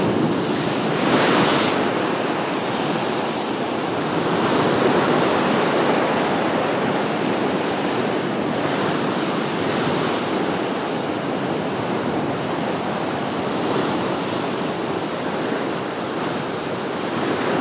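Mediterranean sea waves breaking and washing over a rocky shore: a continuous surf that swells louder each time a wave hits, about four times.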